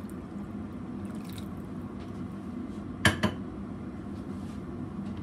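Water poured from a glass measuring jug into a frying pan of mince sauce, over a steady low hum. About three seconds in come two sharp knocks in quick succession, typical of the glass jug being set down on the counter.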